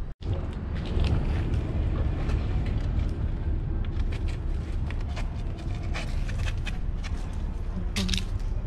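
Wind rumbling across the microphone, with scattered scrapes and taps from shoes and hands on sandstone as a man climbs the rock face. The sharpest scrape comes near the end.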